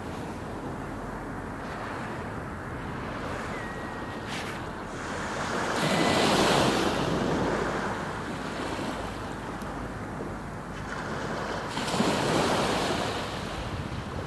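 Sea surf washing onto a sandy beach, with wind on the microphone. The surf swells louder twice, about halfway through and again near the end.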